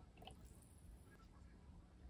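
Faint trickle of a drink poured from a can into a small ceramic cup, with a soft splash near the start.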